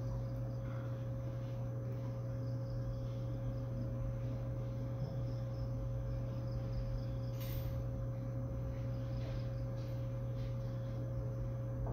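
Steady low electrical hum with a thin, steady higher tone over background hiss: the noise floor of the voice-over recording while the narrator is silent. One brief soft noise about seven and a half seconds in.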